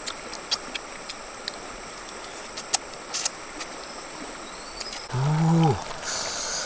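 Scattered light clicks and taps, then a person's single drawn-out groan of effort about five seconds in, followed by a short breathy exhale.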